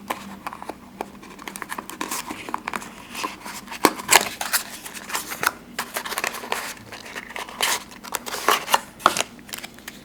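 A folding knife cutting open a package: irregular scraping and slicing with many small clicks and knocks, and crinkling and tearing of the packaging.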